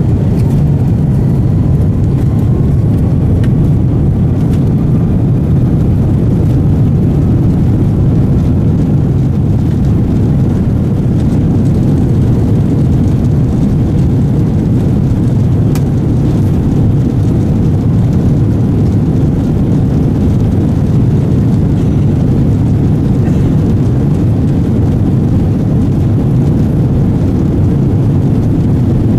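Steady low rumble inside the cabin of an Airbus A330-300 moving on the ground, its Rolls-Royce Trent 700 engines running at an even setting.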